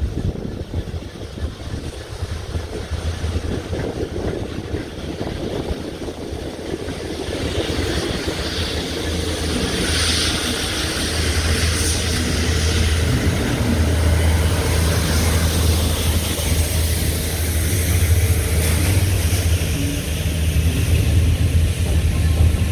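Colas Rail Class 66 diesel locomotives and tank wagons of a railhead treatment train passing slowly, with the locomotive's EMD two-stroke V12 engine giving a steady low drone. The treatment train's water jets spray the rails with a broad hiss around the middle, and the engine note grows louder near the end as the rear Class 66 draws level.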